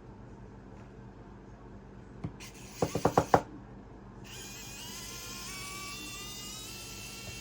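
Small Phillips screws being worked out of the phone's loudspeaker assembly: a click, then a quick run of about five clicks, followed by a small electric screwdriver whining as its pitch slowly rises.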